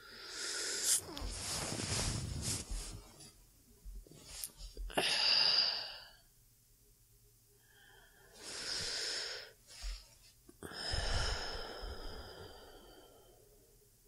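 A woman's slow, deep sleepy breathing close to the microphone: several long breaths in and out with pauses between them, the loudest about five seconds in.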